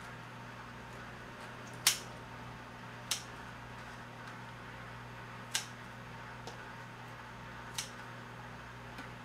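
Kitchen scissors snipping kimchi in a bowl: four sharp snips a second or two apart, with a couple of fainter clicks, over a steady low hum.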